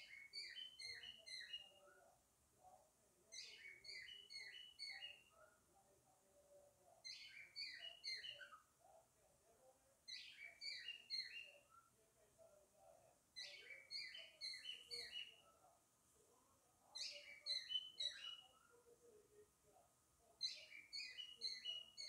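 Male cockatiel calling to its mate: a short phrase of four or five chirped whistles, repeated seven times at about three-and-a-half-second intervals.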